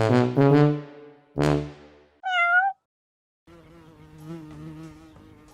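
Brass notes of a short trombone-like fanfare, then a single wavering cat meow about two seconds in. After a brief silence, a fainter steady buzzing hum starts just past halfway.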